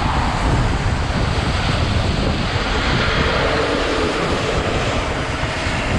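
Steady wind buffeting on a hand-mounted action camera's microphone while riding, a dense low rumble with road noise underneath.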